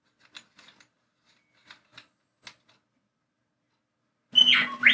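Several faint clicks and taps of the lightsaber hilt's pommel and speaker parts being handled and taken apart. Near the end a pet bird squawks loudly, with rising and falling whistly calls.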